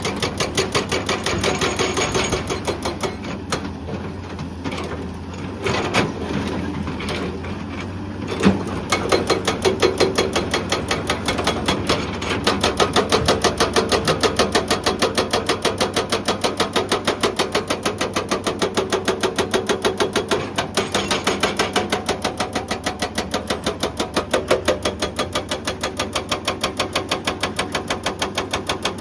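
Hydraulic breaker on a Hyundai excavator hammering rock in rapid, even blows over the machine's engine hum. It eases off for a few seconds with a couple of single knocks, then hammers steadily again.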